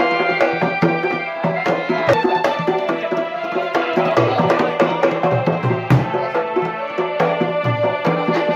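Bantengan ensemble playing: hand drums and a large bass drum beat a steady rhythm under ringing, held pitched tones.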